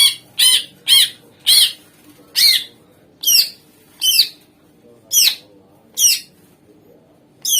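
Cucak ijo (greater green leafbird) giving a series of about ten loud, sharp, repeated call notes. Each is a quick arching note. They come about twice a second at first, then slow to about one a second.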